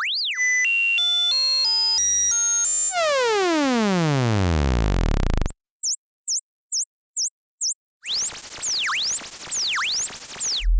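Generated speaker-cleaning test tones for ejecting water and dust from a phone speaker: a run of beeping tones jumping in pitch several times a second, then a buzzy tone falling steadily from high to low, then high-pitched chirps repeating about twice a second, then a hiss with tones sweeping down and back up about once a second.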